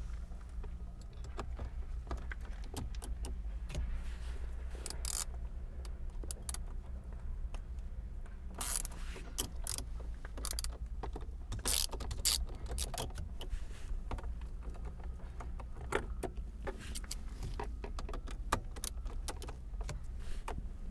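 Ratchet clicking in short runs as a T30 Torx airbag retaining screw is driven back in, among light clicks and taps of tools and plastic trim. A steady low hum sits underneath.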